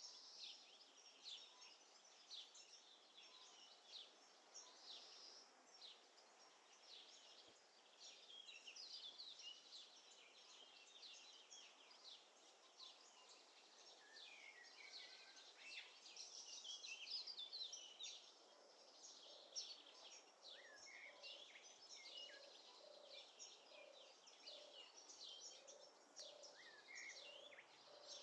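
Faint outdoor chorus of songbirds, with many short high chirps and trills overlapping. In the second half a lower note repeats about once a second.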